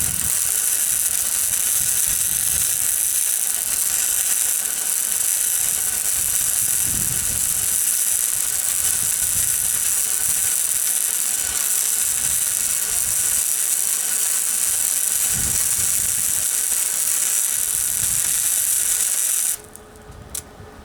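Miller 140 wire-feed welder running Harbor Freight flux-core wire, its arc crackling and sizzling steadily while a weld bead is laid on steel, stopping abruptly a little before the end.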